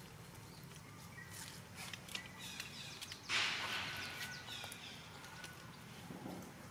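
Quiet outdoor ambience with faint high chirps and light scattered clicks. About three seconds in there is one brief, loud rustle, typical of a young macaque scrambling through dry leaf litter.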